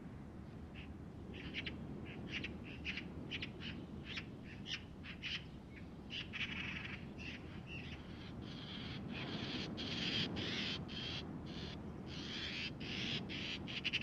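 Wild birds calling on a lake shore: a quick series of short, high call notes that grow into denser, longer bouts of calling from about six seconds in, over a low steady background hum.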